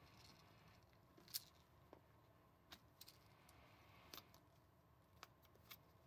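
Faint, scattered clicks of small plastic whistle parts being handled and fitted together, about half a dozen light clicks over near silence.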